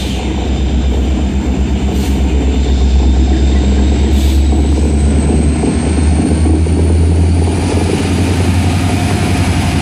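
Diesel freight locomotives approaching and passing close by, a loud deep engine roar that swells a few seconds in. A faint high whine slowly rises in pitch over it, and three sharp clicks come about two seconds apart in the first half.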